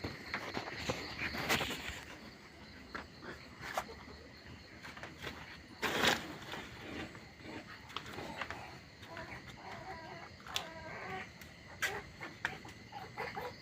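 Pigs in their pens making short calls and grunts, mixed with scattered knocks and rustling, and a louder noisy burst about six seconds in.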